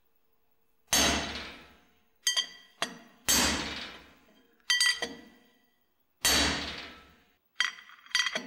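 Hammer blows on a steel bearing-race punch, driving the pinion bearing race out of a 1980s Toyota truck differential housing. About eight sharp metallic strikes come at uneven intervals, and the heavier ones ring out for around a second each.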